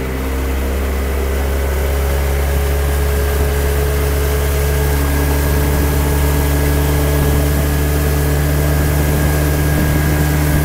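A small boat's outboard motor runs steadily at cruising speed, its trim lowered one notch for more pickup. Its pitch rises slightly in the first second, then holds, over a rush of wind and water.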